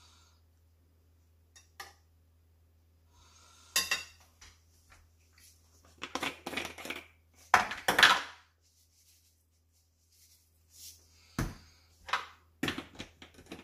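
Ceramic plates and a bowl knocking and clattering as they are handled and set down, with metal tongs clinking against them, in scattered bursts loudest about eight seconds in.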